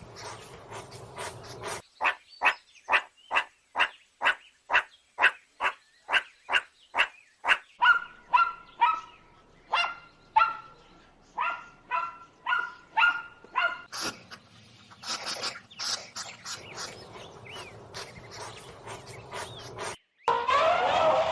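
A dog barking over and over in a quick run, about two barks a second. The barks then turn into shorter, higher, more tuneful yelps. After that comes a softer, noisier stretch.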